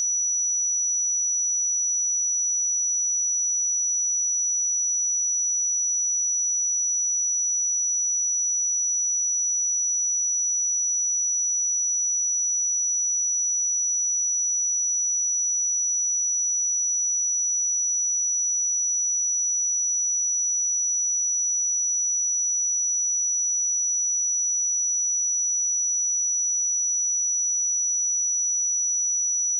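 A steady, unbroken 5891 Hz pure sine-wave test tone, a single high-pitched whistle held at constant level.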